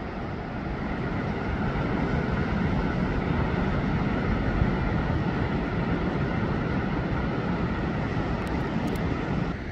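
Steady outdoor roar of ocean surf with wind rumbling on the microphone. It builds slightly over the first couple of seconds, then holds.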